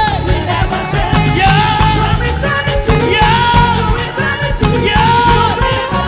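Live gospel praise music from a church band: bass and drums keep a steady beat under a held, bending melody line.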